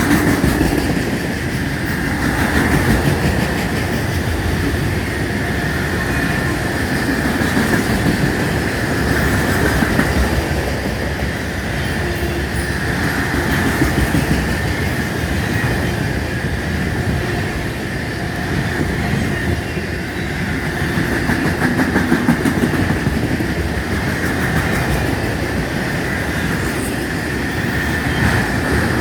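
Freight cars of a long manifest train rolling past at slow speed, wheels clacking over the rail joints, with a steady high squeal from the wheels.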